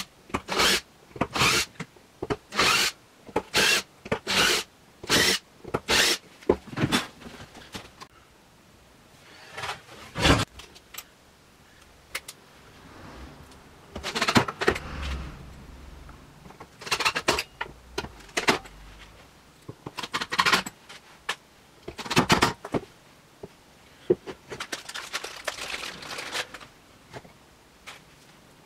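Cordless driver run in short trigger bursts, driving screws into wood: a quick series of bursts about two a second for the first six seconds, then single bursts every few seconds, with clinks and rustling of handling between them.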